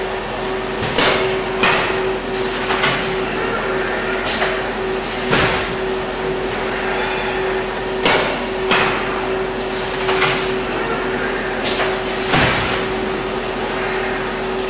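Robotic palletizer at work: a steady machine hum with sharp clunks every one to two seconds, often in pairs.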